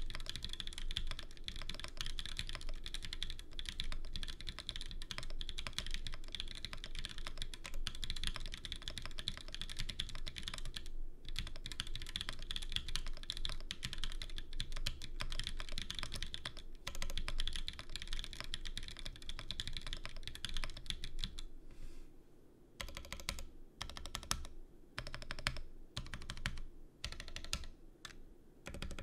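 Mechanical keyboard with an aluminium plate and stock Haimu x Geon Linear Black linear switches being typed on fast and continuously, with one short pause about eleven seconds in. For the last quarter the keystrokes slow to separate presses and short runs with gaps between them.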